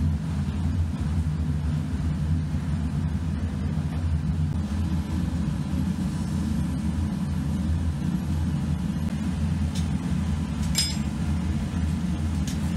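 A steady, unchanging low machine drone, with one short sharp click a little before the end.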